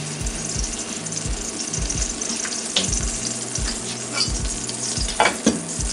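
Olive oil heating in a pot, sizzling and crackling steadily, with a few sharp clicks of kitchen utensils about three and five seconds in.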